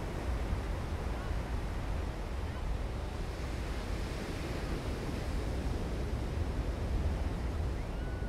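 Ocean surf washing onto the beach: a steady wash of noise, with wind rumbling on the microphone.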